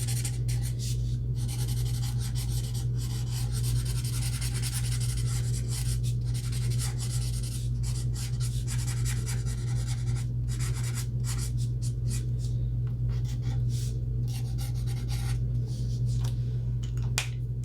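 Ohuhu alcohol marker (BG5) stroking over paper while the coloured hair is blended, a continuous scratchy rubbing with short breaks between strokes, over a steady low hum.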